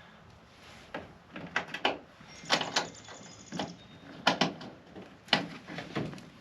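Moulded plastic mudflap being forced and slid into position against the truck's plastic fender rock shield: a series of sharp plastic knocks, clicks and short scrapes, roughly one or two a second.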